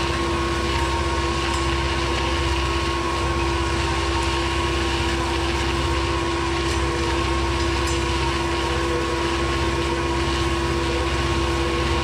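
Tractor engine running steadily with a tractor-mounted strawberry runner cutter working down a mulched row: a deep, even rumble with a steady whine over it and no change in speed.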